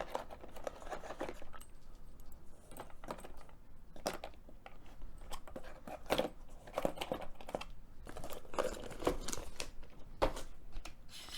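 Handling of a Milwaukee M12 cordless cable stapler and its plastic-strip staple racks: irregular small clicks, knocks and rattles of plastic and metal.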